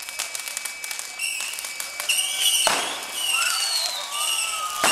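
Fireworks mounted on performers' hats spraying sparks: fast, dense crackling with high whistling tones over it and a sharp bang about halfway through.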